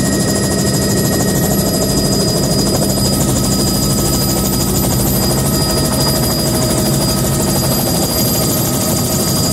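Bell 206B3 JetRanger in flight, heard from inside the cabin with the doors removed: a loud, steady drone of its rotor and Allison 250 turboshaft engine, with thin, high, steady whines over it.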